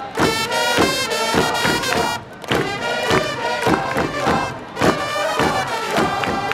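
Music with a quick, steady beat.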